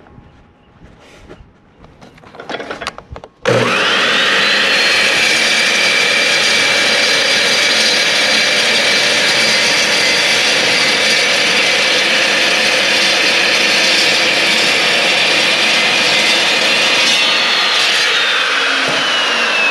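Evolution metal-cutting chop saw starting up about three and a half seconds in with a rising whine. It then cuts through steel flat bar with a loud, steady high whine over grinding noise. Near the end the trigger is let go and the whine falls as the blade spins down. Before the saw starts there are a few light knocks.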